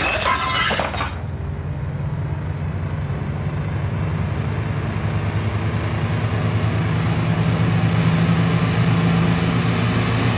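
A dense, steady low rumbling drone with a deep hum, swelling slowly louder. A brighter, busier sound over it fades out about a second in.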